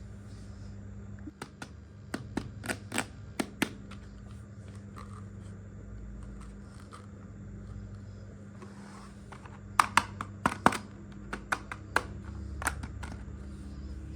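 Small hard miniature toy kitchen pieces clicking and tapping against each other as they are handled. The clicks come in two bursts, one early and one past the middle, over a steady low hum.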